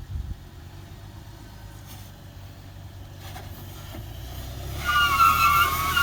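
Toyota 4Runner's engine running low and steady while crawling over slickrock, with a loud, wavering high squeal starting near the end.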